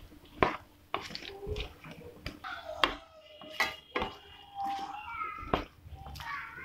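A spatula stirring diced potatoes into oil and fried masala in a non-stick pan, scraping and knocking sharply against the pan several times.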